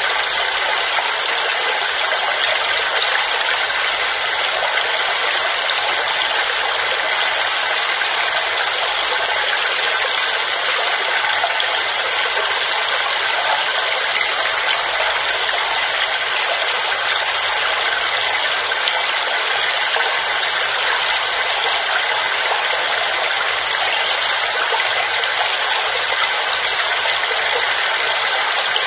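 Waterfall: a steady, unbroken rush of falling water, hissy and bright with little deep rumble.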